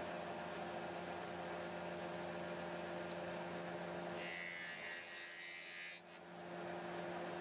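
Tenoning machine running with a low, steady hum. For about two seconds past the middle the sound shifts to a brighter hiss, then settles back to the hum.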